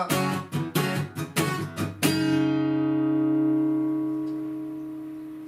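Acoustic guitar strummed in quick chord strokes, then a last chord struck about two seconds in and left to ring, slowly fading.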